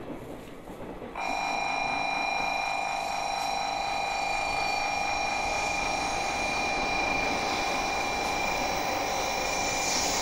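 An electric warning buzzer on a Shinkansen platform starts abruptly about a second in and holds one steady, unchanging tone, sounding as a Shinkansen train pulls in; a rising hiss of the arriving train joins it near the end.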